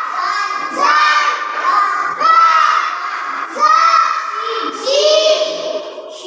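Young schoolchildren chanting a lesson together in a loud sing-song recitation, one phrase about every second and a half, following a boy who points along the blackboard.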